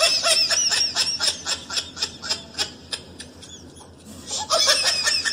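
High-pitched squeaky cartoon sound effect: a warbling squeal over quick clicks, about four a second, dying down about three seconds in and coming back briefly near the end.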